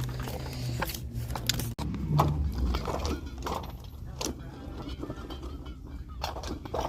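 Store background noise with irregular clicks, knocks and rattles of items being handled, with a brief dropout about two seconds in.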